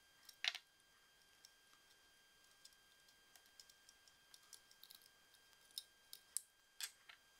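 Near silence broken by a few faint, scattered clicks and taps of a small socket wrench and a metal nut being handled, the clearest about half a second in and several more near the end.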